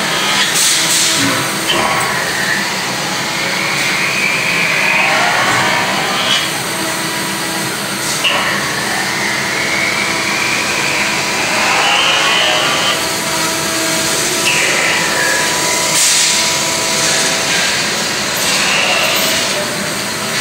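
CNC metal-spinning lathe forming an eighth-inch aluminium blank over a mandrel. Under a steady machine noise, a whine rises slowly in pitch over a few seconds with each pass of the forming roller, several times over, and there are a few sharp clicks.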